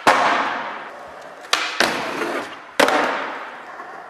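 Skateboard hitting a concrete floor: sharp clacks of landings and tail pops, four in all (one right at the start, two close together about a second and a half in, one near three seconds), each followed by a fading rush of wheels rolling on concrete.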